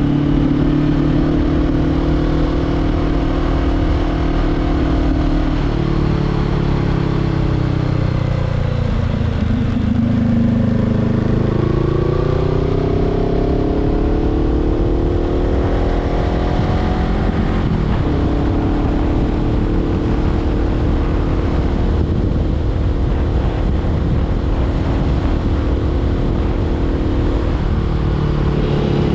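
Honda CBR500R parallel-twin engine through an LV10 slip-on exhaust, heard from the rider's seat under steady wind rush. Its pitch falls as the bike slows, then climbs steadily under acceleration before dropping suddenly at an upshift, after which it holds an even cruising note.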